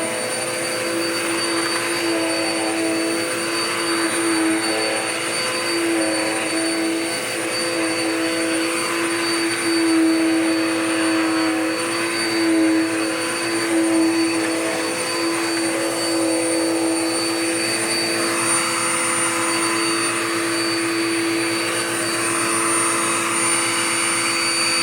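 Power Max vacuum cleaner running steadily, its motor giving a constant hum-whine over the hiss of air being drawn through the hose, while it sucks up bits of paper. About two-thirds of the way through, the rushing-air hiss changes character.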